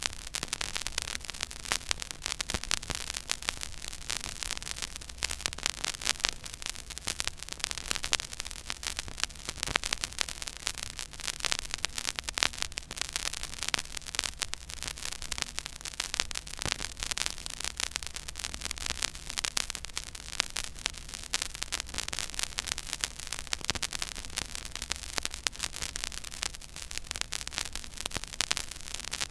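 Surface noise from a silent groove on a 12-inch vinyl record playing at 33⅓ rpm: dense crackle and frequent pops over a steady hiss, with a low hum underneath.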